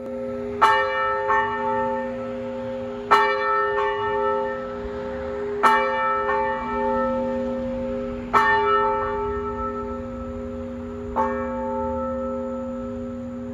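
A single church bell tolling five times, about two and a half seconds apart. Each stroke rings on in a long hum that carries over into the next, and the last stroke is the softest.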